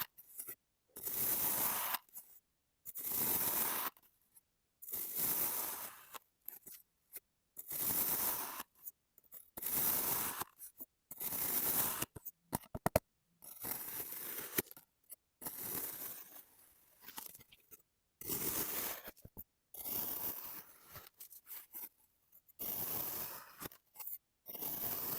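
Kinetic sand being cut through again and again, each cut a soft, crunchy scraping stroke under a second long, about every one and a half seconds with quiet between. A few sharp clicks come about halfway through.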